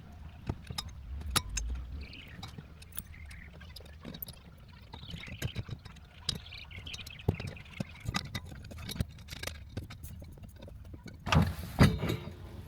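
Irregular clicks, knocks and metallic clinks from hand tools and metal parts being handled while a harness bar is fitted to the seatbelt mounts, with a louder clatter near the end.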